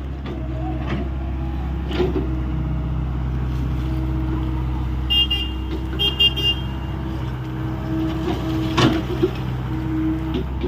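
Hyundai 85A excavator's diesel engine running steadily under work, with a few sharp knocks. Two short, high beeps sound about five and six seconds in.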